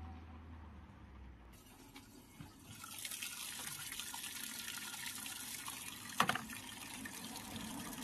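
Washing machine taking in water through its inlet valve, a steady hiss of water filling the drum that starts about two and a half seconds in, at the start of the fill stage of a test cycle. A single knock comes about six seconds in.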